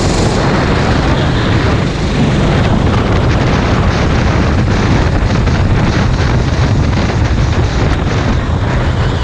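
Racing kart's engine running at speed under load, heard from an onboard camera, with heavy wind noise buffeting the microphone.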